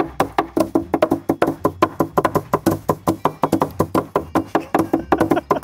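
Two wooden sticks beating a burlap sack full of dried wheat heads on a wooden table, a rapid, uneven run of dull knocks, about six a second: hand-threshing to knock the wheat berries loose from the heads.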